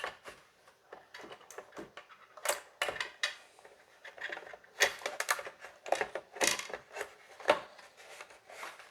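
Irregular plastic clicks and knocks as a piece of the Xbox One X's plastic casing is worked into place by hand, its tabs being lined up before it slips down. The clicking gets busier and louder about halfway through.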